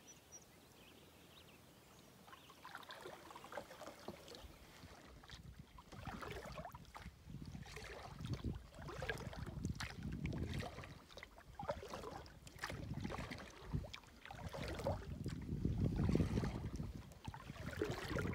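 Old Town Pack canoe being paddled: paddle strokes and water swishing, a stroke every second or two, quiet at first and building after a few seconds.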